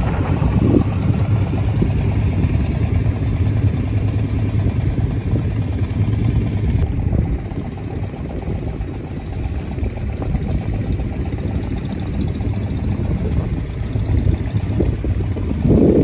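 Car engines running at low speed under a steady low rumble, as an SUV drives off a wooden ferry's loading ramp and then a minivan drives up onto it; the engine noise swells briefly near the end as the van mounts the ramp.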